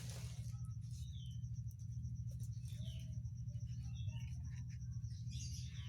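Birds chirping over a steady low hum.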